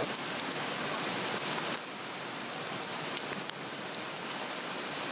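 Swedish torch, a cross-cut cedar log, burning hard: a steady rush of flame with a few sharp crackles and pops, the loudest about three and a half seconds in.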